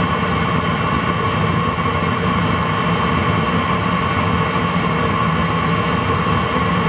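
Eberspächer diesel night heater running steadily at its exhaust outlet, a loud even rush with a constant whine, on the original exhaust pipe before any silencer is fitted.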